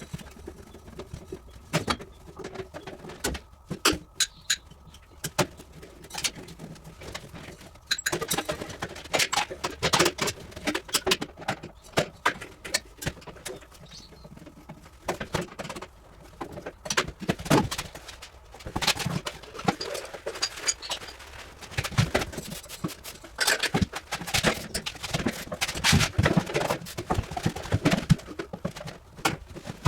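Irregular clicks, knocks and rattles of hand-tool work on a refrigeration unit's parts, sparse for the first several seconds and then busier.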